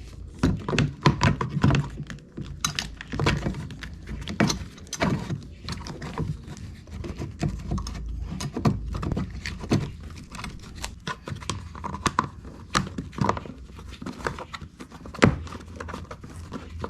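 Irregular clicks, taps and light rattling from hand work in the battery compartment of a WEN 3800-watt inverter generator, as the battery's negative terminal is connected and the battery is fitted back.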